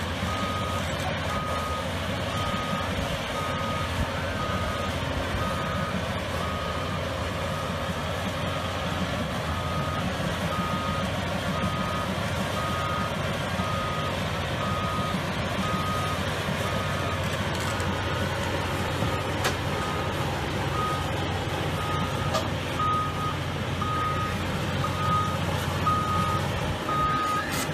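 Caterpillar excavator's travel alarm beeping about once a second, a steady high beep, over the low steady running of a diesel engine.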